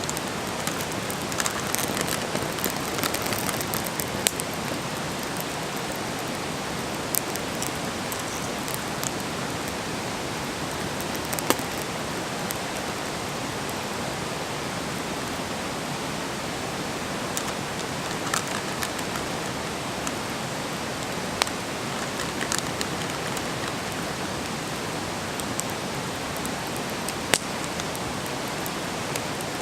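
Wood fire burning with a steady hiss, broken by scattered sharp pops and crackles. The crackles cluster in the first few seconds, then come as single louder snaps every few seconds.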